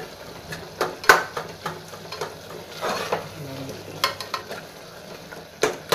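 A metal spatula stirring a cooking vegetable mixture in an aluminium pressure cooker pot, scraping and knocking against the sides in irregular strokes about once a second, over the low steady hiss of the cooking mixture.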